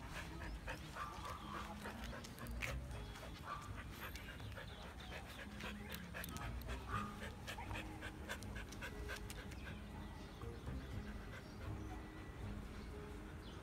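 Siberian husky panting close to the microphone, with scattered clicks and rustling throughout.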